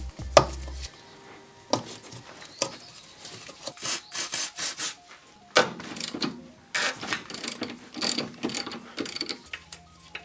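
Hand socket ratchet clicking in short runs of strokes as it turns a nut on a car's front lower suspension arm, with separate sharp knocks between the runs.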